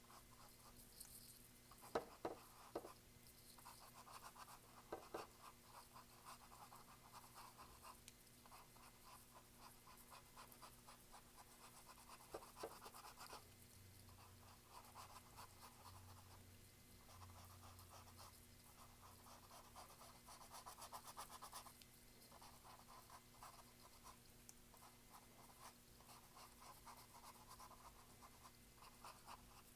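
Faint scratchy strokes of a paintbrush's bristles brushing acrylic paint onto canvas, coming in short bouts with brief pauses between them. A few light knocks stand out, about two seconds in, around five seconds in and a little after twelve seconds.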